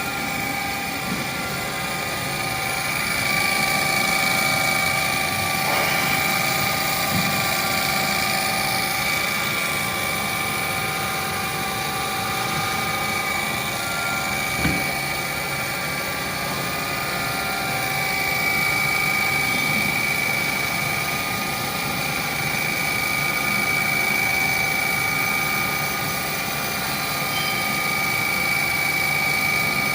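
CNC horizontal boring mill running, a steady machine whine made of several held tones that swells and eases slowly, with one short knock about halfway through.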